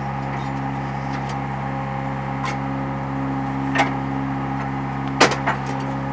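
Hydraulic fly ash brick press running, its motor and pump giving a steady low hum, with a few sharp metallic knocks from bricks and moulds being handled on the machine's tables, the loudest about five seconds in.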